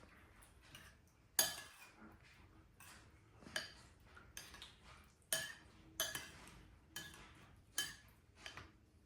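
Spoons clinking against bowls: a dozen or so sharp, irregular clinks with short ringing tones, the loudest about a second and a half in.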